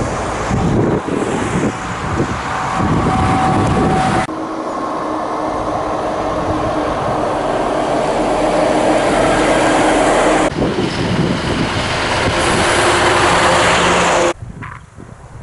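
Diesel trucks driving past one after another, with sudden cuts between the clips: a Scania G-series tractor-trailer, then a Scania P-series refuse truck about four seconds in, then a Scania R560 tractor pulling a slurry tanker trailer from about ten seconds. Near the end the sound cuts to a quieter passing vehicle.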